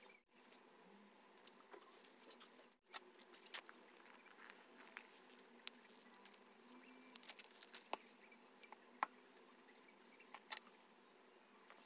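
Near silence: faint room tone with scattered small clicks and taps from hands handling craft materials on a table.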